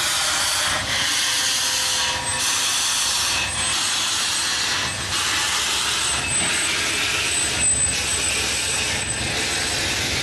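Milwaukee Road 261, a 4-8-4 steam locomotive, pulling away slowly with its cylinder cocks open: loud steam hissing that eases briefly about every second and a half in time with the slow driver strokes.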